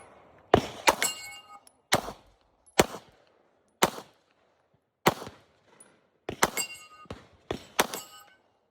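Gunshots at a 2-gun match, about ten in an irregular string, several of them in quick pairs. Some are followed by a brief ringing tone from a hit on a steel target.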